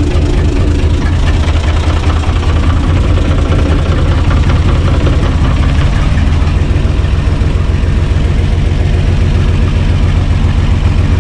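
A UTB U445 DT 4x4 tractor's diesel engine running steadily with a deep, fast, even chug, heard from inside its cab.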